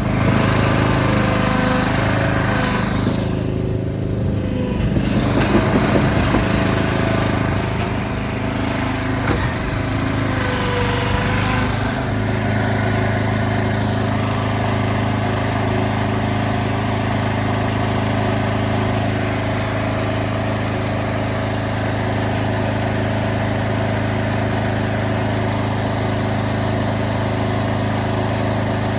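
Concrete mixer truck's diesel engine running steadily; the sound changes abruptly about twelve seconds in, then holds even.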